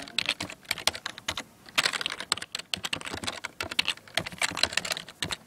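Typing on a computer keyboard: a quick, irregular run of key clicks, with a short pause about a second and a half in, as login details are typed in.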